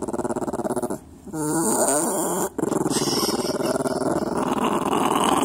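Small dog growling: a steady rattling growl, a short break about a second in, then a wavering growl that bends up and down in pitch, another brief break, and the steady growl again.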